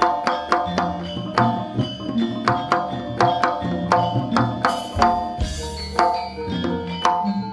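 Live Javanese jaranan gamelan music: kendang hand drums and ringing struck metal percussion playing a steady beat of about three strokes a second, with a couple of splashy crashes about five seconds in.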